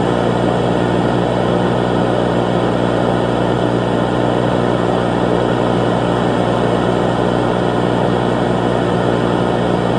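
A steady, loud low drone: a hum under a rough, noisy hiss that does not change.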